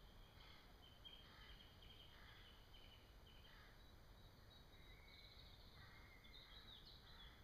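Near silence: faint birds chirping repeatedly over a low, steady background rumble.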